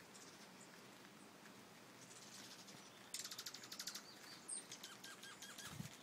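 Dark-eyed juncos calling faintly: a short rapid trill about halfway through, then a looser run of quick chips and twitters. A soft low thump near the end.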